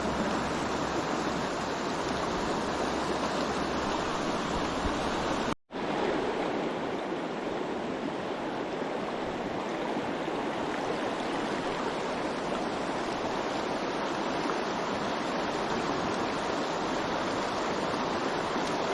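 River current rushing steadily, heard close to the water, with a momentary break in the sound about five and a half seconds in.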